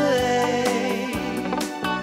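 Theme-song music with a steady beat and a long held note that slides down about half a second in.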